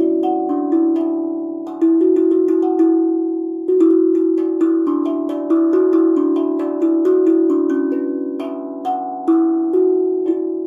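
BeatRise 13-inch, 15-note steel tongue drum played with mallets: a slow, free melody of struck notes, each ringing on and overlapping the next, with fresh louder strokes about two seconds in and again near four seconds.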